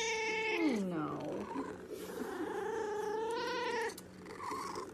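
A cat meowing in two long, drawn-out calls: the first slides down in pitch and ends about a second in, and the second is a longer, wavering call that stops just before four seconds in.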